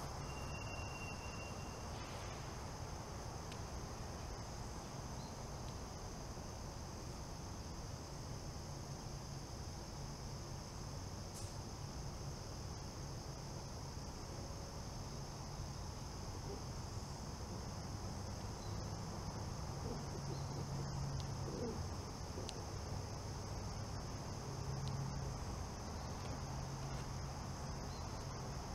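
A steady, high-pitched insect chorus, like crickets, over a low, steady hum that grows a little louder in the second half.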